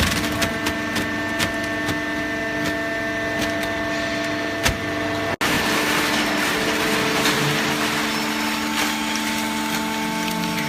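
Hydraulic baling press running: a steady machine hum made of several fixed tones, with scattered sharp clicks and crackles over it. The sound cuts out for an instant about five seconds in, then carries on.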